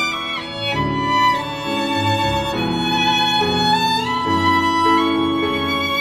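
Background music: a solo violin melody over a string accompaniment.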